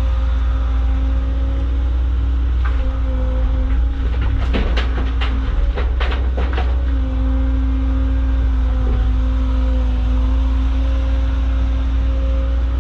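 Caterpillar excavator's diesel engine running steadily with a constant hydraulic whine, heard from the cab. A quick run of sharp clanks comes about four and a half seconds in and lasts a couple of seconds.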